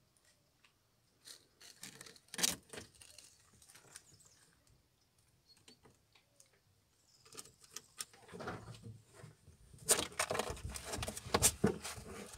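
Ferrets moving about a wooden hutch: a few sharp clicks and scratches of claws on the boards, then, after a quiet spell, a busy stretch of scratching, scrabbling and rustling through wood-shaving bedding that grows louder toward the end.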